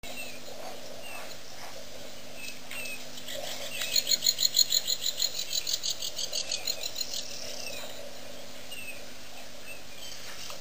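Outdoor bush ambience with a steady hiss and scattered short high chirps. About four seconds in, a loud, rapid series of high-pitched animal calls starts, about six a second, and fades away over some three seconds.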